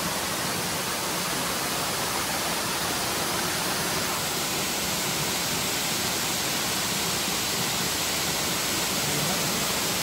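Waterfall cascading down a rock face: a steady, unbroken rush of falling and splashing water.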